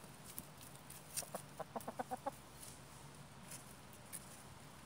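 Chicken clucking: a quick run of about ten short, low clucks between about one and two and a half seconds in.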